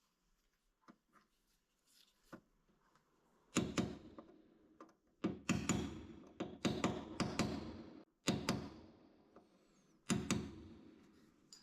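A run of sharp knocks and scrapes from hand tools on the body-filler-covered rear panel, each fading quickly, mostly between about three and a half and ten and a half seconds in.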